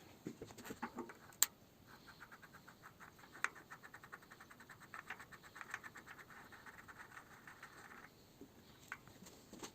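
Faint metallic handling of a bicycle front hub as it is taken apart: a couple of sharp clicks, then a rapid, even ticking of about ten a second that runs for some six seconds and stops.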